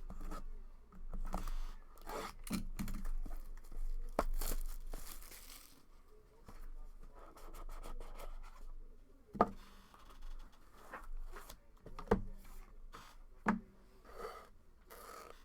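Trading-card box packaging being torn and crinkled as it is opened, in irregular rustling bursts. Three or four sharp clicks or taps come in the second half.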